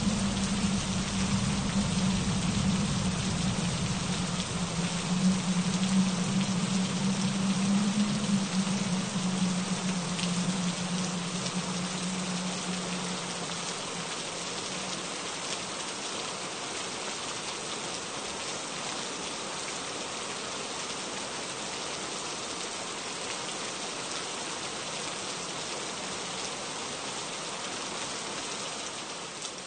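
Steady rain falling, an even patter, with a low rumble beneath it that fades away about halfway through.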